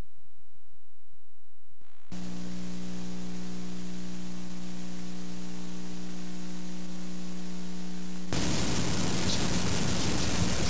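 Tape hiss and mains hum from a VHS tape's blank start playing back, with a steady hum setting in about two seconds in and the hiss turning louder and rougher near the end.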